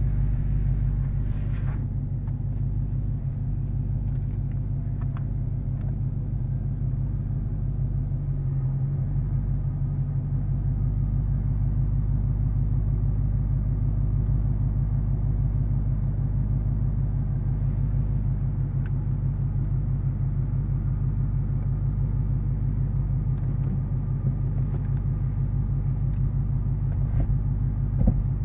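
Dodge Challenger SRT Hellcat's supercharged 6.2-litre V8 running at a steady low engine speed, a deep even rumble heard from inside the cabin. A brief thump comes near the end.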